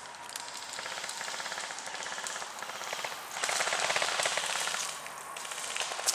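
Airsoft guns firing in rapid automatic strings of clicking shots, the heaviest string about halfway through and lasting a second and a half.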